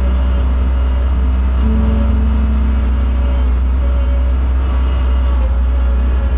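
Skid steer loader's engine running steadily under load, a deep constant drone heard from inside the operator's cab as the machine drives over gravel.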